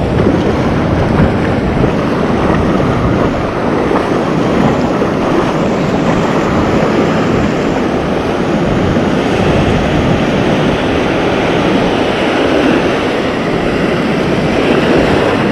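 Steady rush of surf breaking on a sandy beach, mixed with wind buffeting the microphone into a low rumble.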